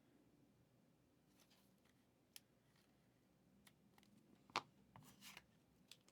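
Near silence: room tone with a few faint clicks and rustles of trading cards being handled, the clearest about two-thirds of the way in.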